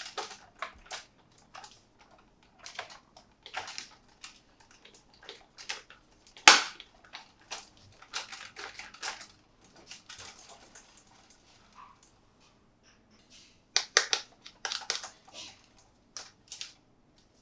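Hands unboxing a toy truck: irregular crinkles, taps and clicks of packaging being handled, with one sharp snap about six and a half seconds in.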